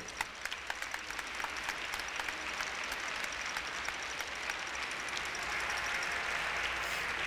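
Audience applause in an ice arena. Sharp single claps close by stand out at first, then the clapping grows into denser, slightly louder applause near the end.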